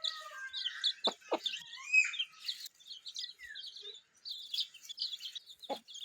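Birds chirping in quick, repeated high calls, with a rising and falling call about two seconds in and a few short low calls.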